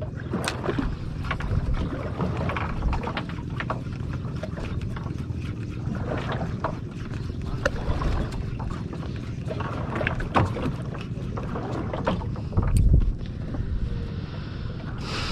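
Wind buffeting the microphone and water slapping against the hull of a small aluminium boat, with scattered short knocks and clicks. A louder low thump comes near the end.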